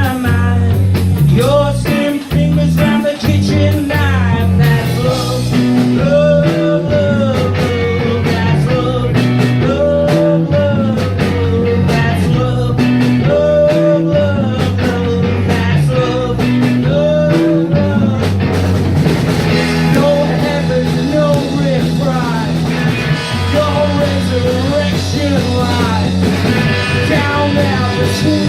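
A live rock band playing loudly: a melodic lead line over bass guitar and drums with a steady beat.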